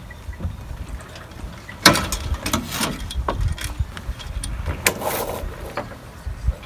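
Metal spinnaker pole and deck fittings knocking and clicking as the pole is handled and clipped on, a few separate knocks with the loudest about two seconds in and a quick cluster near the end, over a low rumble of wind on the microphone.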